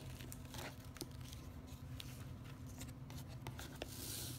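Faint handling sounds of a ribbon being untied and pulled off a cardboard gift box: light rustles and small ticks, with a brief swishing rustle near the end, over a steady low hum.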